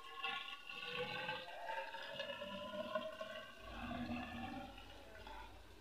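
Petrol pouring from a plastic bottle into a tall glass measuring cylinder, a steady gurgling pour whose ringing pitch creeps upward as the measure fills.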